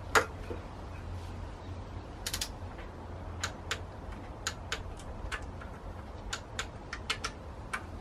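Ratchet wrench clicking in short strokes, a string of sharp metallic clicks about two a second, after one louder click at the start.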